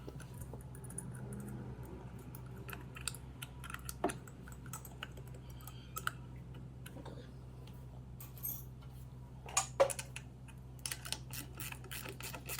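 Irregular light clicks and taps of small metal parts and hand tools being handled while bolting down an outboard motor's water pump housing, with a louder few clicks near the end. A steady low hum runs underneath.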